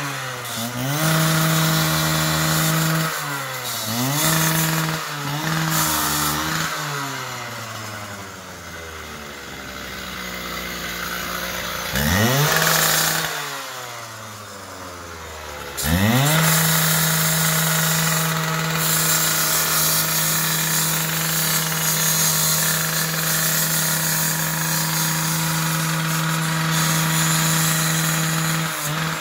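Two-stroke engine of a handheld gas saw revving up and dropping back several times, then slowing down and quieter toward idle. It is blipped once about halfway, then held at steady high revs for the last half.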